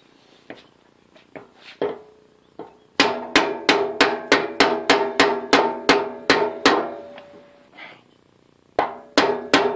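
Plastic-faced hammer blows driving a keyway broach through an aluminium pulley, with each blow ringing with a short metallic tone. A few light taps come first. From about three seconds in there is a fast run of hard blows, about three a second for nearly four seconds, and another run starts near the end.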